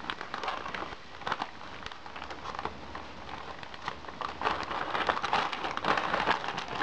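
Plastic postal mailer crackling and crinkling as it is slit open with a folding knife and pulled apart by hand: a run of small clicks and rustles that gets busier about halfway through.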